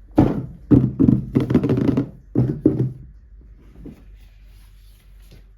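Toy packaging handled close to the microphone: a quick run of knocks and rustles for about three seconds, then a few faint taps.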